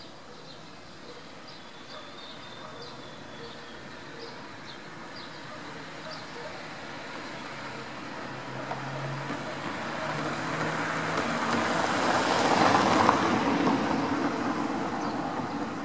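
A passing vehicle: a broad rushing noise that swells over several seconds, peaks near the end and starts to fade. Faint short high ticks sound in the first half.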